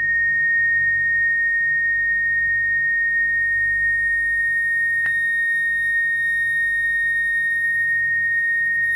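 Chladni plate vibrating at a single driving frequency: a steady high-pitched tone a little under 2 kHz that holds its pitch while the scattered sand settles into nodal-line patterns. One sharp click about five seconds in.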